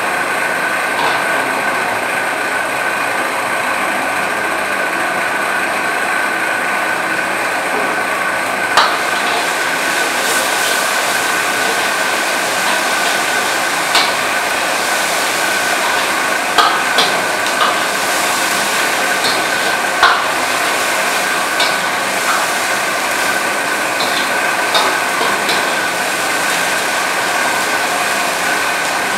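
A metal ladle clinking against a steel wok about ten times while stir-frying, the clinks coming mostly in the second half, over a steady loud roar with a constant whine.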